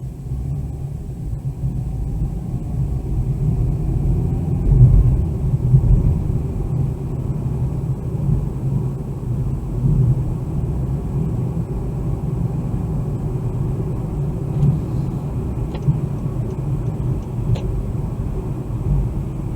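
Car driving on the road, heard from inside the cabin through a dash cam's built-in microphone: a steady low rumble of road and engine noise that swells over the first few seconds, with a few faint clicks late on.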